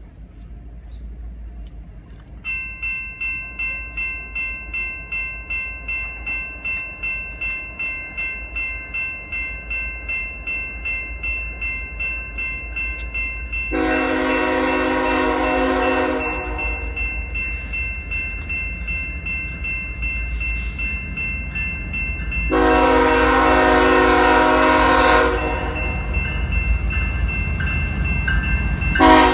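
A General Signals Type-2 electronic crossing bell starts ringing a few seconds in, about two strikes a second, as the crossing activates. A locomotive horn then sounds two long blasts and begins a short one near the end, the horn sequence of a train approaching the crossing, with a low rumble building under it.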